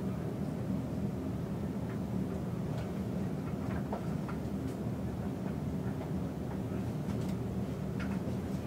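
Steady low rumble of background room noise with a few faint, scattered clicks.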